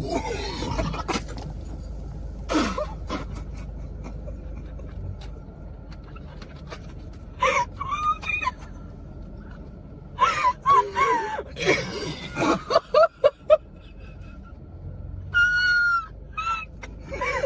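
Two young women laughing hysterically in breathless bursts, gasping and squealing between fits, with a high-pitched squeal near the end.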